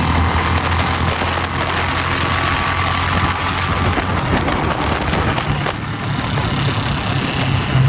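Royal Enfield Bullet 350 single-cylinder motorcycles running flat out in a drag race, their low exhaust note under a steady rushing noise. The engine note fades early on and comes back strong near the end.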